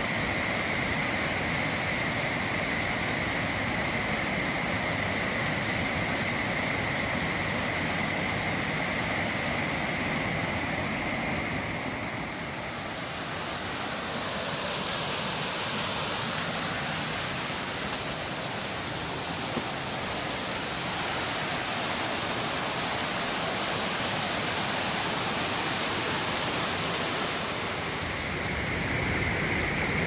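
Waterfall on a mountain stream in high water: turbid water rushing and foaming down cascades of layered rock, a steady full rushing sound. From about twelve seconds in until near the end the rush turns brighter and hissier.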